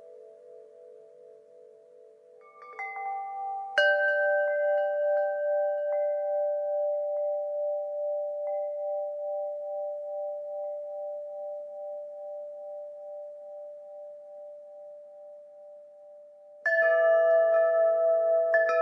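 Wind chimes ringing: a few light strikes about three seconds in, then a louder cluster whose tones ring on and slowly fade for over ten seconds, and a fresh jangle of several chimes near the end.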